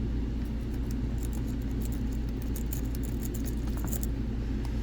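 City rake pick scrubbing in and out of a five-pin ASSA cabinet lock, giving an irregular patter of small metallic clicks as the pin stacks are bounced. A steady low hum runs underneath.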